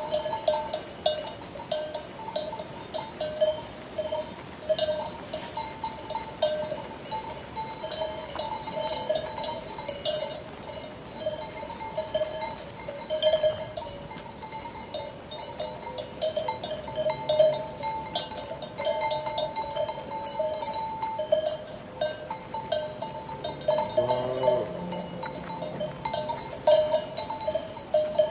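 Sheep bells clanking irregularly and continuously, several at once, their ringing notes overlapping. Near the end a sheep bleats once.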